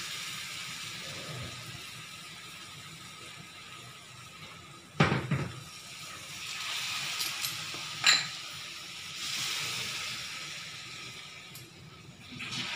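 Hot water poured from a flask into a plastic bowl and from the bowl into a hot kadhai of roasted semolina and vegetables for upma. There are two brief sharp sounds about five and eight seconds in.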